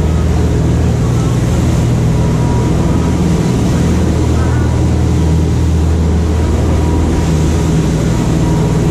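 Sportfishing boat's engines running steadily at speed, a loud low drone with the rush of wake water and wind.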